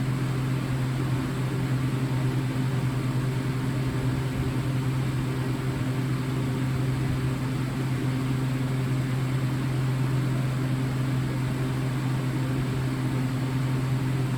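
Steady low background hum with an even hiss over it. The pitch and level do not change, and there is no alarm tone.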